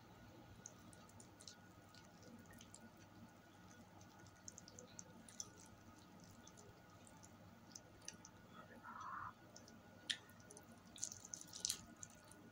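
Faint close-up eating sounds of spaghetti: scattered small clicks of a fork and wet noodle sounds, with a cluster of clicks and slurps near the end as a large forkful goes into the mouth.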